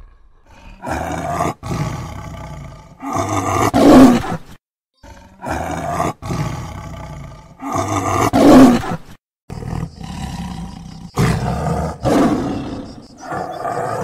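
Tiger roaring again and again in a string of deep roars with short breaks between them. The loudest roars come about four and eight and a half seconds in.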